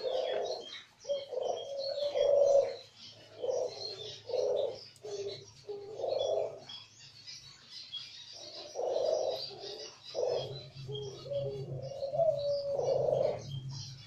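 Several caged doves cooing, repeated low coos about a second long that overlap one another, over a steady background of small birds chirping high and fast.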